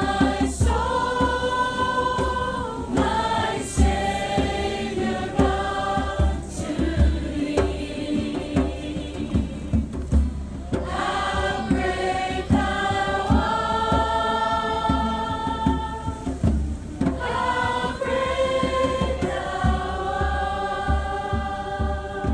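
A crowd of people singing a worship song together, voices in unison with long held notes.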